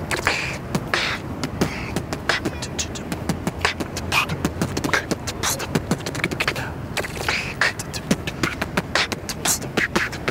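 A man beatboxing: a fast, dense run of sharp mouth clicks and hissed hi-hat-like sounds.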